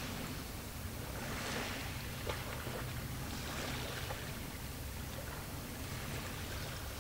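Small waves washing in a few times, each a soft rising and falling hiss, over a steady low rumble. A single faint click about two seconds in.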